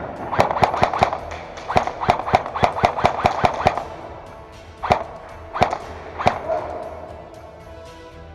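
Airsoft guns firing: a quick string of shots in the first second, a longer string of rapid shots from about two to nearly four seconds in, then three single shots spaced well apart. Background music plays underneath.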